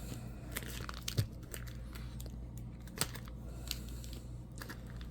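Sealed plastic trading-card pack wrappers handled, with scattered small crackles and sharp clicks; the loudest come about a second in and about three seconds in.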